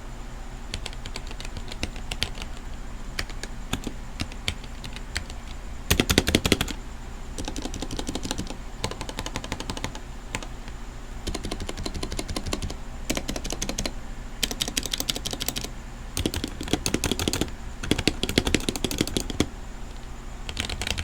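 Typing on a Womier K66 60% mechanical keyboard with Gateron red linear switches: a continuous run of rapid keystroke clicks, with louder, faster flurries about six seconds in and again in the last third.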